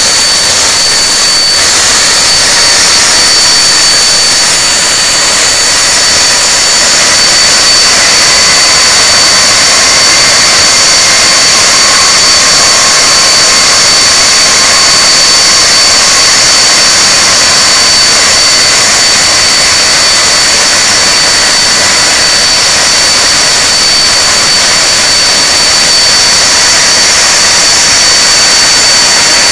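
Rolls-Royce Conway turbofan engines of a Handley Page Victor K2 running on the ground: a loud, steady rush of jet noise with a constant high compressor whine over it.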